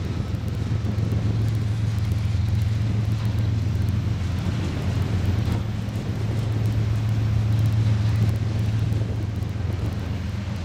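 BNSF freight train running by, a steady low drone with the rumble of the train and some wind on the microphone.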